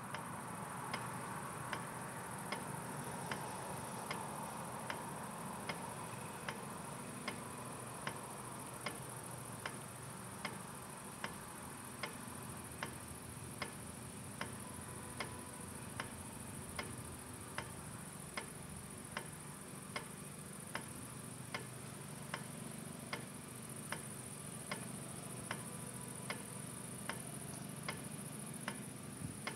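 Level-crossing warning bell striking in an even, slow rhythm, a little faster than once a second, over a steady high chirring of crickets.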